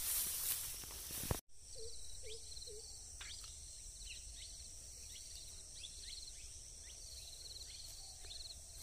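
Rural field ambience: a steady high insect drone with repeated cricket-like trills, and birds giving short downward-sliding calls, with three short low calls about two seconds in. For the first second and a half there is rustling of steps through dry grass, ending in a sudden break.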